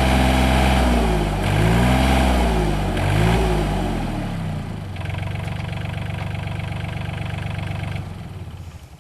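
Mini excavator's three-cylinder Yanmar diesel running at high revs, its pitch dipping and recovering twice, then settling to a lower, steady idle about four seconds in. About eight seconds in the engine is shut off and runs down to quiet.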